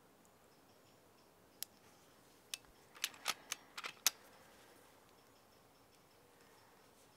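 Side-lever action of an FX Impact MK2 PCP air rifle being worked: a run of short sharp clicks, two spaced ones then a quick cluster about three to four seconds in.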